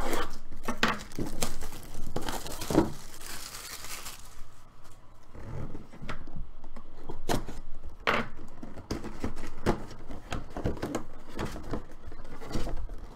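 Cardboard mini-helmet box being opened by hand: a run of short scrapes, rustles and knocks of cardboard, with a longer tearing stretch about two to four seconds in.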